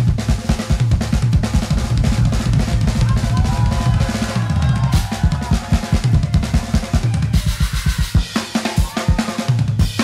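Live jazz drum kit solo: rapid rolls and fills across the snare, toms, bass drum and cymbals, with the bass drum dropping out briefly about three-quarters of the way through.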